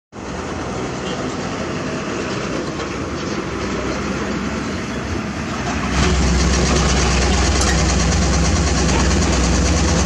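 Diesel engines of hydraulic excavators and dump trucks working together, a steady heavy mechanical din. About six seconds in, a deep engine rumble grows louder.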